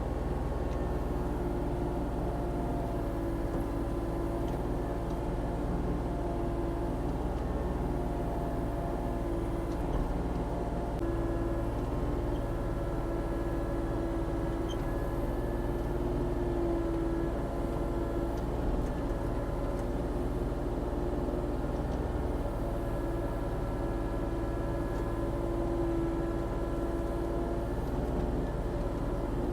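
Volvo ECR40D compact excavator's diesel engine running steadily under working load, with a whine from the hydraulics that comes and goes as the machine digs.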